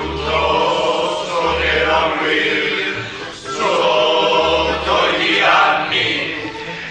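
Background music: a choir singing held notes over deep bass notes that each last about a second.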